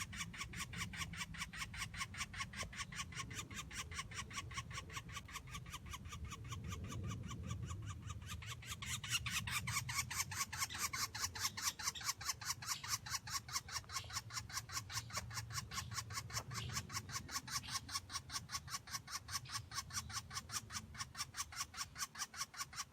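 Sparrow chirping in a fast, even series of short chirps, about four a second, with the chirps louder from about nine seconds in.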